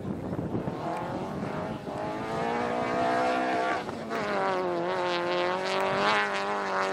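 Rally car engine at high revs on a gravel stage: the note climbs in pitch over the first few seconds, drops out briefly about four seconds in, then comes back loud and held high with small wavers. Hiss of wind and gravel before the engine note rises.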